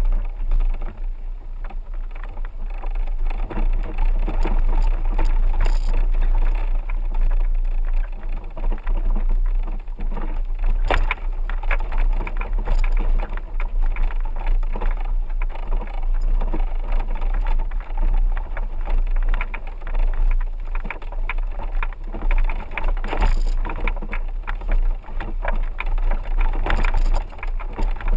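4x4 vehicle driving slowly over a rough dirt road: a steady low engine and road rumble with frequent knocks and rattles, the sharpest knock about eleven seconds in.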